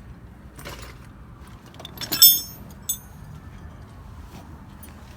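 Steel hand tools clinking in a garage: one sharp, ringing metal clink about two seconds in and a lighter one just after, over faint background noise.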